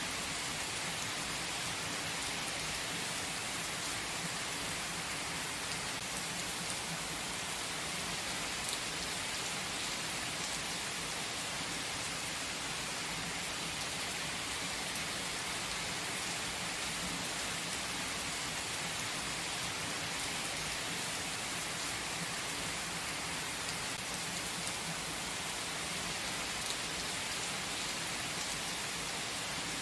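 Steady rain falling on conifer trees: a constant, even hiss with no lulls.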